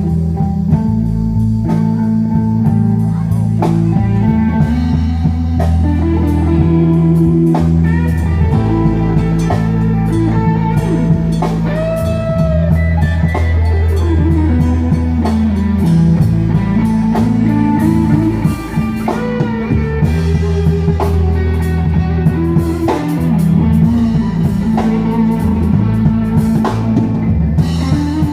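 Instrumental break of a slow country-blues song: a lead guitar plays a solo full of bent, sliding notes over bass and drums.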